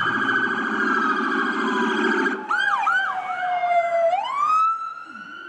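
Electronic police siren: a steady high tone, then a few quick rising-and-falling yelps and a long falling wail that swoops back up and holds.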